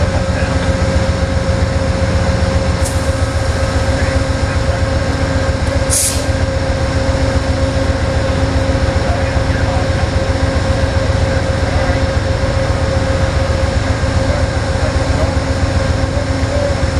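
Diesel locomotive running steadily, with a low throb under a steady whine, and a short burst of hissing air about six seconds in.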